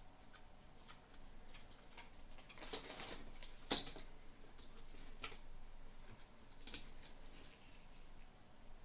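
Light clicks, taps and short scrapes of small hard parts being handled, with a sharp click about four seconds in as the loudest.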